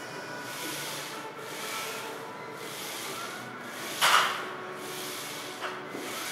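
Rhythmic hissing breaths, about one a second, during heavy barbell hack squat reps. One loud, short burst comes about four seconds in, and a light knock follows near the end.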